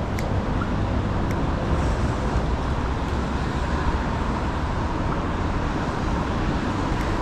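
Steady city street traffic noise, a continuous wash of passing vehicles, with a few faint light ticks.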